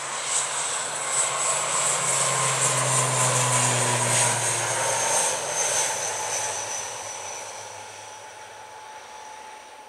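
Wings Air ATR 72-600's twin Pratt & Whitney PW127 turboprops at full takeoff power as the airliner rolls past, lifts off and climbs away: a low propeller drone under a broad roar and a high turbine whine. The sound is loudest about four seconds in, then falls slowly in pitch and fades.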